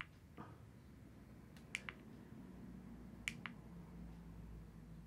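Faint, sharp clicks in close pairs, about a second and a half apart: TV remote buttons being pressed while navigating the TV's YouTube app.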